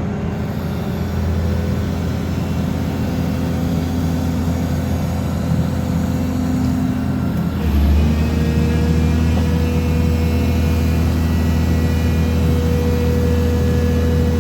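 Engine and hydraulics of a tilting-type pile driver running steadily with a whine, stepping up in level and pitch about eight seconds in; no hammer blows.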